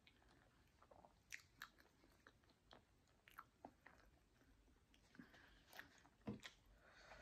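Faint close-up chewing of food, with scattered small wet mouth clicks and ticks, and a sharper soft knock a little past six seconds.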